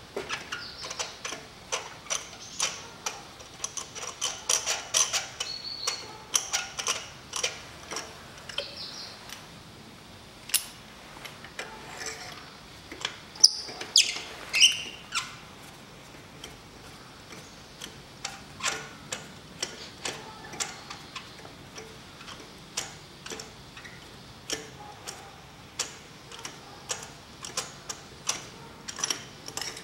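Ratchet wrench clicking in runs of quick strokes with pauses between, as spark plugs are unscrewed from their wells.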